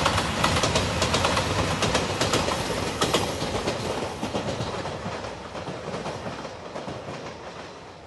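A 2700 series diesel limited express train passing at speed, its wheels clacking rapidly over the rail joints. The sound is loud at first, then fades away over the last few seconds as the train goes off into the distance.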